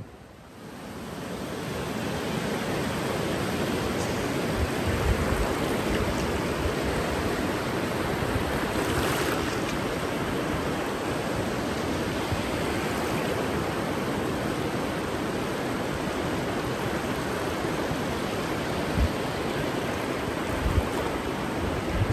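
Ocean surf washing in over a shallow sandy beach at the water's edge: a steady rush of breaking waves and foam that fades in over the first two seconds, with a few brief low thumps.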